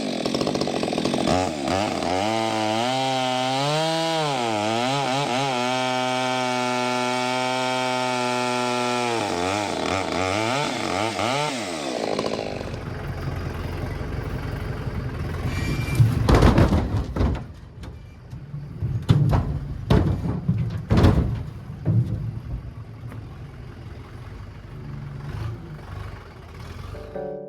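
Stihl chainsaw engine running, its revs wavering and then holding steady, before it dies away about twelve seconds in. After it, several sharp knocks.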